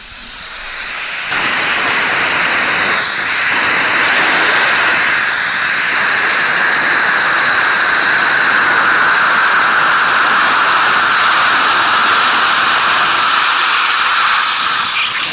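Dentist's saliva suction pump running: a steady, loud hiss of air being drawn through the tip. It swells up over the first second, changes tone briefly about three and five seconds in, and cuts off suddenly at the end.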